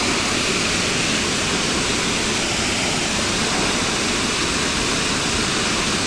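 Steady rush of creek water pouring over a waterfall, an even, unchanging wash of sound.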